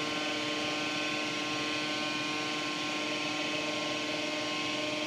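Steady mechanical hum of indoor pool room machinery: a constant drone of several held tones over an even hiss, with no change throughout.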